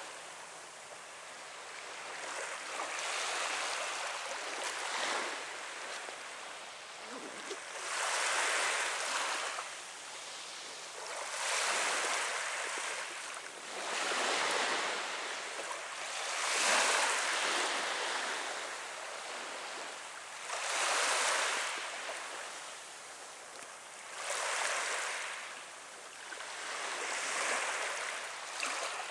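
Small waves from a calm sea washing onto the shore and drawing back, a soft swelling hiss that rises and falls about seven times, roughly every four seconds.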